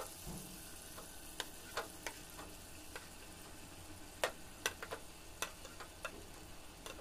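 Mustard-and-poppy paste frying faintly in oil in a pan, broken by a scattering of light clicks and taps as a metal spatula moves fried pointed gourds into it.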